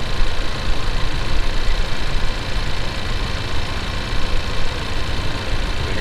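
Ford Ranger's 2.3-litre EcoBoost four-cylinder idling steadily, heard through a mechanic's stethoscope with the probe on the alternator. The owner says the alternator chirps now and then, which it is not supposed to do.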